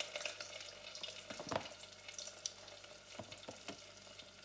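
Lumpia, still slightly frozen, frying in hot oil in a deep steel pot: a steady crackling sizzle, with a few light knocks about a second and a half in and again near the end.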